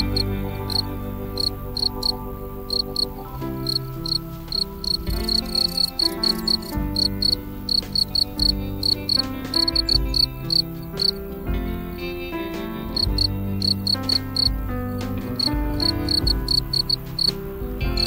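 European field cricket chirping: a steady train of short, high-pitched chirps, several a second, with instrumental music underneath.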